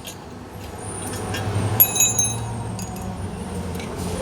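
Metal parts clinking against each other, with a short metallic ring about two seconds in, over a steady low hum.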